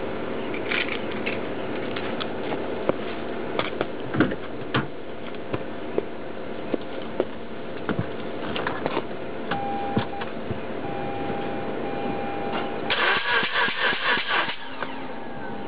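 Mazda RX-8 two-rotor rotary engine cranked on the starter for a compression test: about a second and a half of rapid pulsing near the end. Before it there is a steady hum with scattered clicks and taps.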